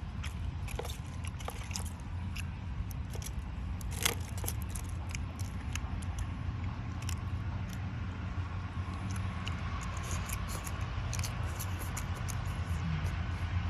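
Eating sounds: scattered small clicks and crunches of chewing, over a steady low hum.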